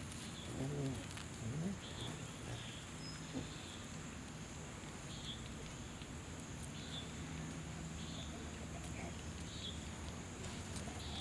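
Outdoor ambience: a steady high insect drone with short, faint bird chirps about every second, over a low steady hum.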